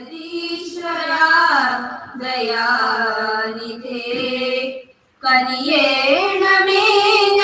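Schoolgirls singing a Malayalam prayer song in slow, long-held notes, with a short pause just before five seconds in before the next line begins.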